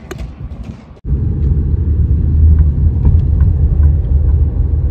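Steady low rumble of a car on the move, starting abruptly about a second in.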